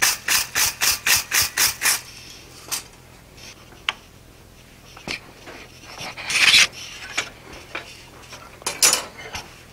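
Hand hammer striking a hot steel punch tip on an anvil: about ten quick, light blows, around five a second, for the first two seconds. Then quieter handling, with a few sharp clicks and short scraping sounds as the piece is set in a leg vise.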